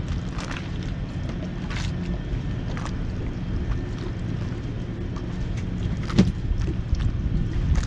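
Steady low hum of an engine running at a constant speed, with scattered short knocks against the boat, the loudest about six seconds in.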